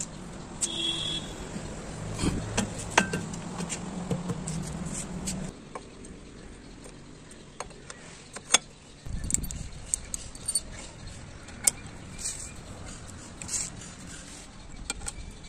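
Scattered sharp metal clinks and taps as steel parts of a homemade flat-bar and square-bar bending tool and a square steel bar are handled and fitted together, over a low background rumble.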